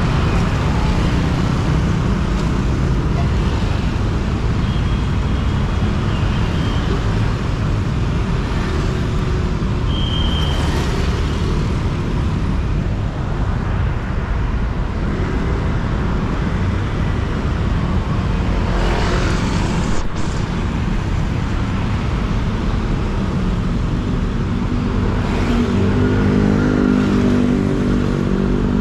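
Motor scooter engine running amid passing city road traffic, a steady mixed rumble of engines and tyres. A pitched engine drone grows louder near the end.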